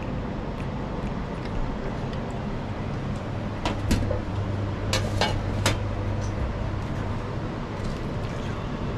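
Steady background traffic noise, with a low hum swelling in the middle. A few sharp metallic clinks about four to six seconds in, from the lid of a stainless steel food container being handled.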